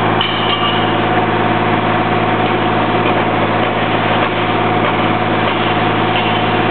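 A steady engine hum, like a motor idling, with a constant low drone that does not change.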